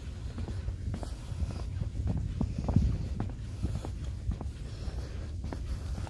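Footsteps on a wooden boardwalk, about two a second, over a steady low rumble on the microphone.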